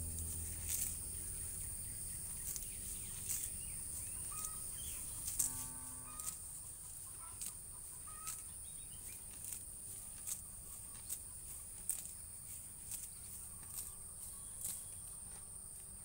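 Cow grazing, tearing off mouthfuls of grass with a short crisp rip about once a second. A chicken calls briefly about five seconds in, over a steady high-pitched whine.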